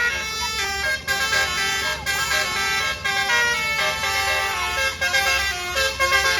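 Basuri telolet bus horn playing a tune in quick stepped notes, with a low engine rumble underneath.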